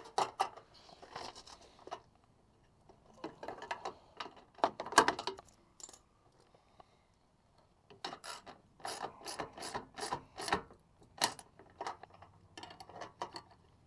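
Hand ratchet wrench clicking in four bursts of strokes with short pauses between, as a bolt is worked on a bumper quick-release clip mount.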